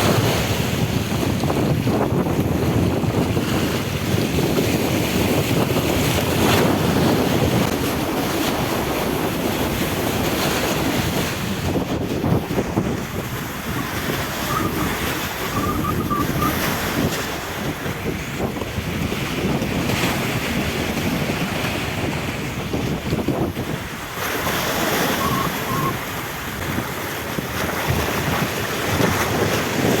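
Wind buffeting the microphone over the wash of sea water around a small fishing boat. There are a few faint, brief high tones about halfway through and again near the end.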